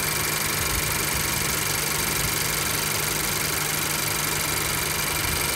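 Honda CR-V engine idling steadily with the AC switched on while the AC system is being recharged with refrigerant.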